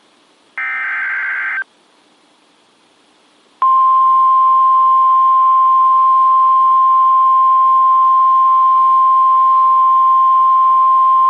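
Emergency Alert System SAME header data burst, a harsh warbling modem-like squeal about a second long. About two seconds later comes the NOAA Weather Radio 1050 Hz warning alarm tone, a single loud steady tone, which announces the new severe thunderstorm warning that follows.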